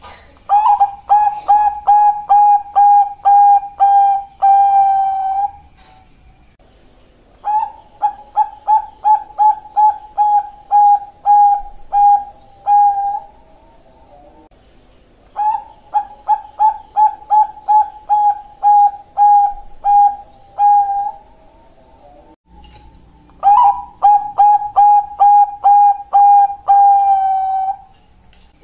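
Zebra dove (Bangkok-line perkutut) song: four phrases, each a quick run of about two short coo notes a second ending on a longer held note, with a pause of a couple of seconds between phrases.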